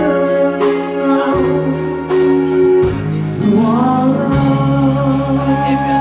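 Live band music: electric bass and drums under a sustained melody line that slides up in pitch about halfway through.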